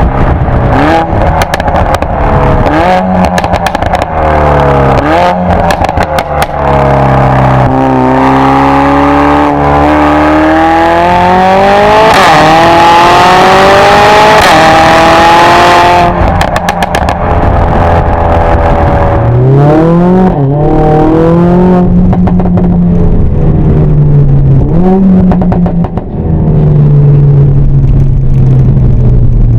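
Mercedes-AMG A45 S's turbocharged 2.0-litre four-cylinder through a Supersprint exhaust and 100-cell downpipe, revving with its pitch rising and falling, and rapid exhaust pops and crackles in the first few seconds and again about halfway through. Near the middle it climbs in pitch to its loudest, held for a few seconds.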